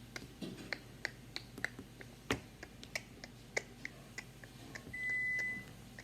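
Lego bricks clicking and clattering as pieces are handled and pressed together: a dozen or so sharp, irregular clicks. About five seconds in, a short, steady high-pitched beep.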